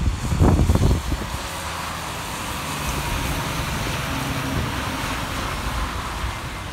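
Traffic passing on a wet road: the hiss of tyres on rain-soaked pavement with a heavy truck's engine running steadily underneath. A few loud low rumbles near the start.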